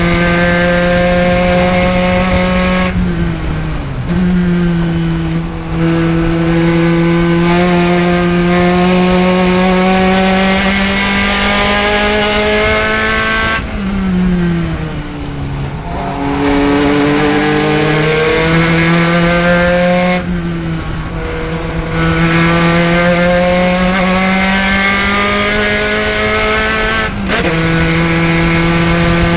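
Spec Racer Ford's four-cylinder engine racing at high revs. It pulls up through the rev range and breaks with short lifts for clutched H-pattern shifts, the pitch dropping sharply on each upshift, about three seconds in and near the end. About halfway through the revs fall away under braking and downshifts, then climb again.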